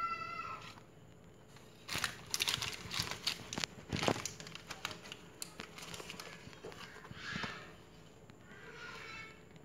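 Crinkling and rustling of tissue paper and plastic wrapping as a new futsal shoe is handled in its box, densest through the middle. A brief high-pitched wavering cry sounds at the very start and more faintly near the end.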